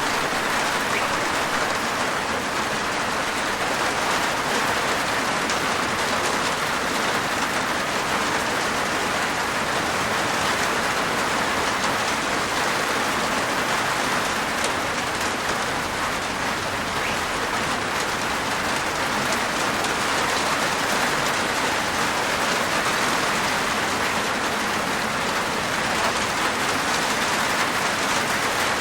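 Steady rain falling on a roof, an even hiss of many drops at a constant level.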